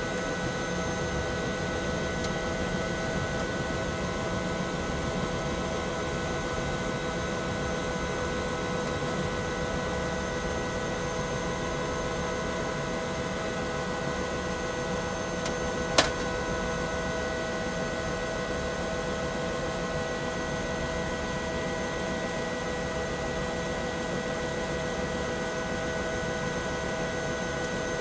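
Bell 212 helicopter heard from inside the cabin, its twin turboshaft engines and rotor system running steadily with a constant turbine whine over a broad drone. A single sharp click sounds a little past halfway through.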